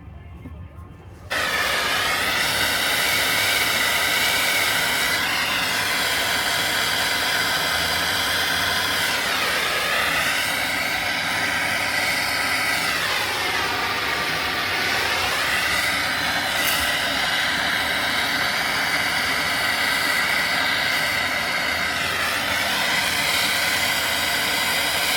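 A motor-driven machine starts abruptly about a second in and runs loudly with a hiss, its pitch dipping and coming back up several times.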